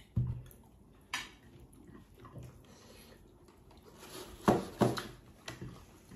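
Eating sounds at a table: a few sharp clicks and knocks of tableware, the two loudest close together about four and a half seconds in, over quiet chewing.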